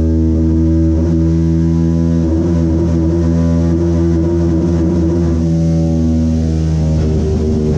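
Keeway KLight 202's single-cylinder engine running hard on a chassis dyno, held at high revs around 9,000 to 10,000 rpm as a steady, loud drone.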